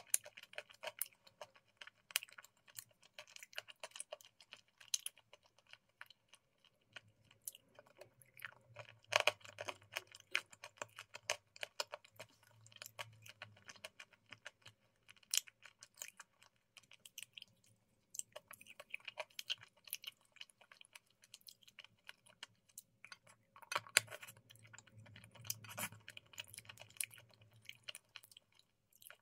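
Close-miked chewing of a mouthful of white food: many small, irregular wet clicks and crackles from the mouth, coming in denser spells twice.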